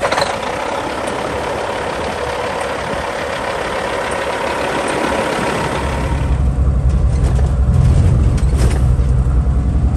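Diesel semi truck engine running, with a loud steady hiss for the first several seconds; about six seconds in a deep engine rumble grows louder and holds.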